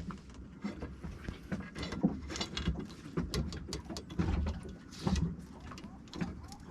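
Scattered light clicks, taps and rustling of hands working on a steering pedestal's shift and throttle cables and fittings.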